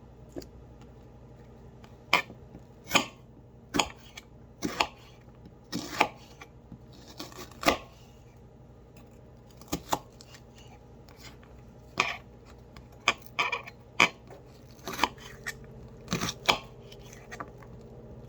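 A kitchen knife chopping a yellow onion on a cutting board: slow, uneven single strikes, with a pause of a couple of seconds near the middle.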